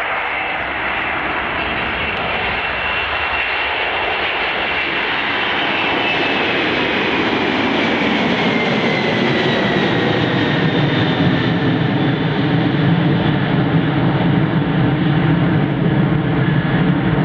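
Airbus A321 jet airliner's engines running, a high whine that falls in pitch over several seconds while a low rumble builds and grows louder.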